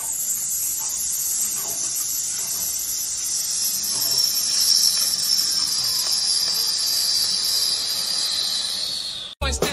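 A steady high-pitched hiss whose pitch sinks slowly, cutting off suddenly near the end.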